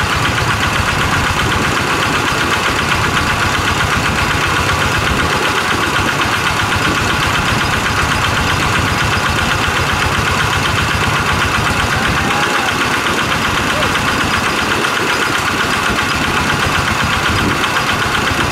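Kubota EA-series single-cylinder diesel engine running steadily at constant speed, driving a water pump.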